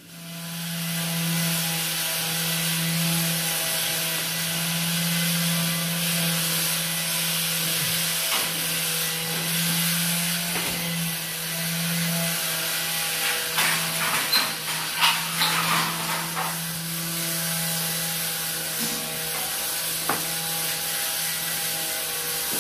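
A steady machine hum and hiss, with scattered clicks and knocks from tools and hardware being handled overhead, bunched together just past the middle.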